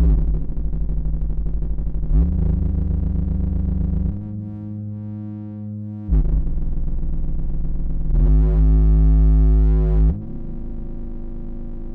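Pittsburgh Modular Cell 48 System 1 modular synthesizer playing a slow sequence of low held notes rich in overtones, stepping to a new pitch about every two seconds. The note near the end has overtones sweeping up and down.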